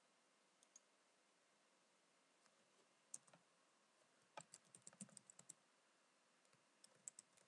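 Faint typing on a computer keyboard: a few scattered keystrokes, then a quick run of about a dozen about halfway through, and a few more near the end.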